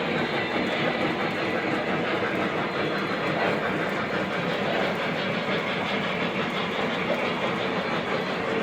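O gauge model trains running steadily on a layout: wheels rolling on the three-rail track, mixed with the locomotives' onboard sound systems playing train sounds.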